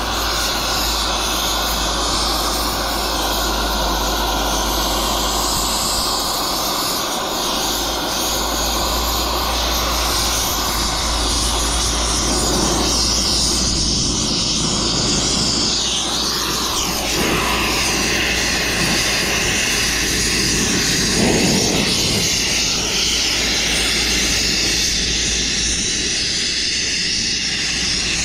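Oxy-fuel cutting torch running with a steady hiss as it cuts through the steel of a scrap electric motor's core and shaft.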